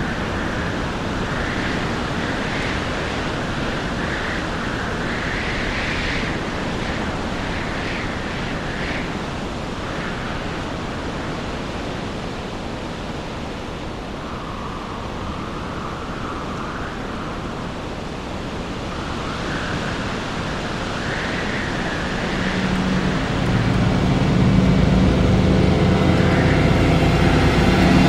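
Storm at sea: a steady rush of wind and breaking waves, with gusts that swell and fall away. About three-quarters of the way in, a low steady humming drone comes in and the whole sound grows louder.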